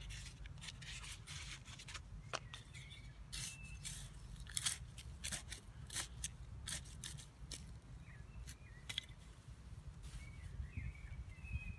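Small hand trowel scraping and digging into dry, crumbly garden soil in a series of short scrapes, with soil pushed and patted by hand. A bird chirps faintly a few times.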